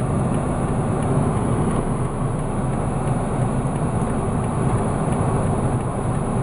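Steady low rumble inside a small car's cabin, its engine idling while it waits at a stop sign.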